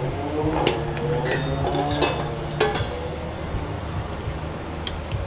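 Hand tools clinking against metal during a scooter oil change: a ratchet and socket knocking on the metal drain funnel and pan, four or so sharp metallic clinks with brief ringing, over a steady low hum.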